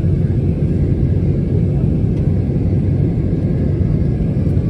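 Steady low rumble of cabin noise inside an Airbus A320neo airliner on approach to land: engine and airflow noise heard from a passenger seat.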